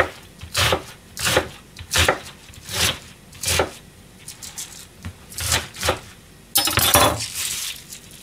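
Kitchen knife chopping cabbage on a cutting board, one knock about every half second. The chopping pauses briefly, two more cuts follow, and then there is a longer rustling scrape near the end as the cut cabbage is gathered up by hand.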